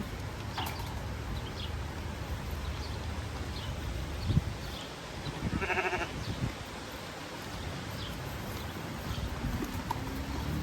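A bleat from a sheep or goat: one short, wavering call about halfway through, over a steady low rumble.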